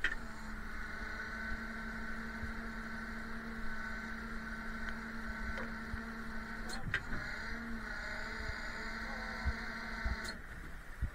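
An electric motor whining at one steady pitch, with a short knock about seven seconds in, cutting off abruptly about ten seconds in.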